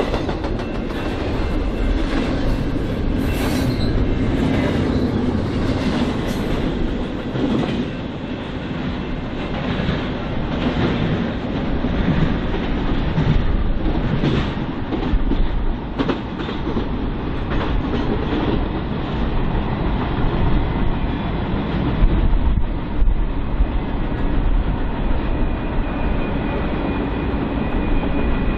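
BNSF freight train rolling past, its rail cars clattering steadily over the rail joints.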